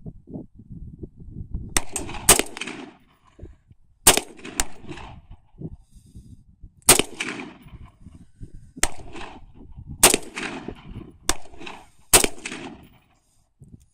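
AR-15 rifle fired in single shots: about nine sharp reports spaced unevenly, one to three seconds apart, some louder than others, each trailing a short echo.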